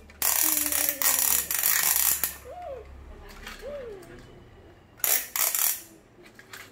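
Hard plastic toy parts rattling and clattering as a toy crane and small toy cars are handled, in a burst of about two seconds and a shorter one near the end. A child hums twice in between.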